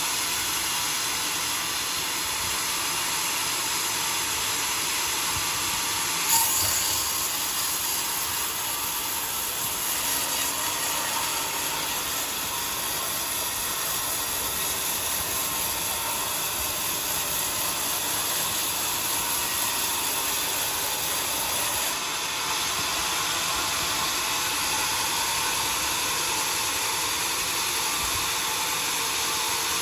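Homemade sawmill's saw running through a log of johar wood, a steady hissing cut. About six seconds in there is a sharp knock, and the cut sounds brighter and higher until about twenty-two seconds in.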